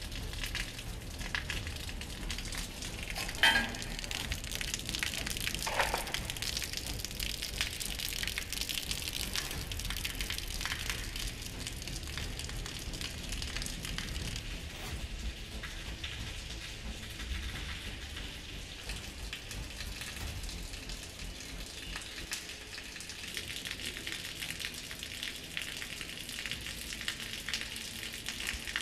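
Steady pattering and crackling of water dripping in a drenched, bomb-damaged workshop, with a brief sharper knock about three and a half seconds in and another near six seconds.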